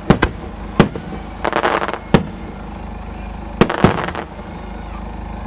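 Aerial fireworks bursting: a run of sharp bangs, with a dense burst of crackling about a second and a half in. The bangs stop shortly before the end, leaving a steady murmur.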